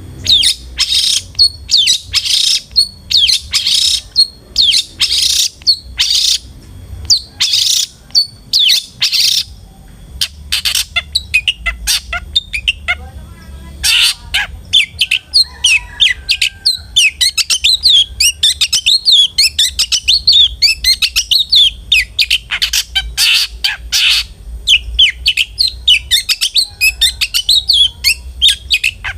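Long-tailed shrike (cendet) calling: a run of harsh rasping squawks about once a second, then from about halfway a fast, busy chatter of short chirping notes.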